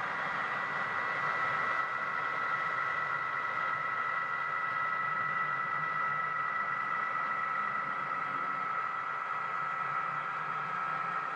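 HO scale model train, a set of Southern Pacific F-unit diesel locomotives pulling freight cars past. It makes a steady running hum with two steady high tones over it.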